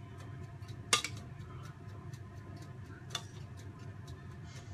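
Metal spoon clinking against a metal bowl and baking dish while white sauce is spooned onto a lasagne: a sharp clink about a second in and a lighter one about three seconds in. Under it, a low steady hum and faint rapid ticking, about four a second.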